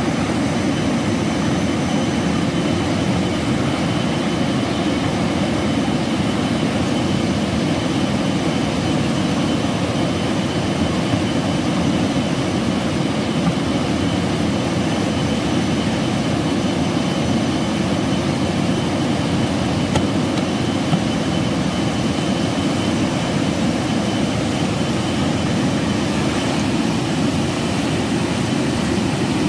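Swollen river rushing: a loud, steady roar of fast water that does not change.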